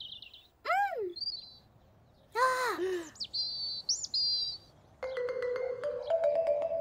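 Two short rising-and-falling cartoon cries, then a cartoon robin chirping in high warbling notes, then gentle music with bell-like, xylophone-like notes starting about five seconds in.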